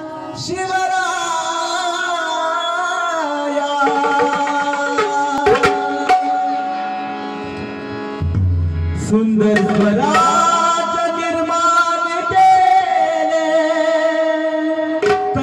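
Instrumental opening of a Marathi devotional song: a harmonium playing a held, stepwise melody over tabla strokes, with a deep low drum stroke a little past the middle.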